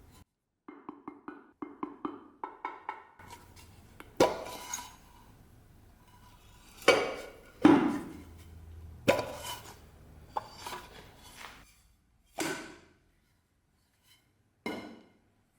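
A quick run of pitched taps, then a series of sharp knocks, each with a short ringing decay, spaced a second or two apart.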